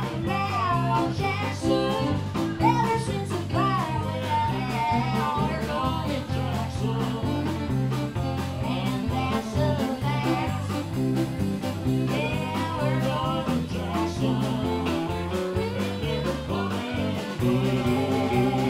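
Live country band playing: a woman singing over electric guitar, fiddle and drums.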